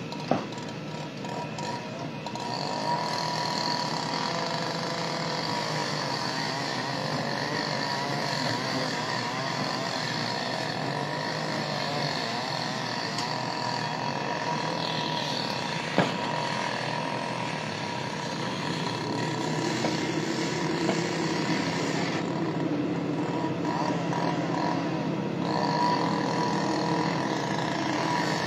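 A steady engine running, with indistinct voices in the background and a single sharp knock about sixteen seconds in.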